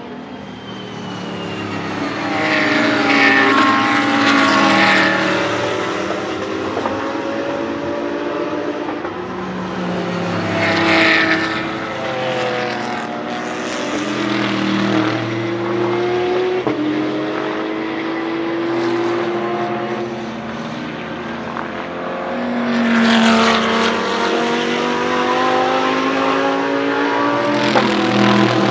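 Race cars' engines going past one after another, each note swelling as the car comes by and falling away, with several engines overlapping. The loudest passes come about three seconds in, around eleven seconds, and twice near the end.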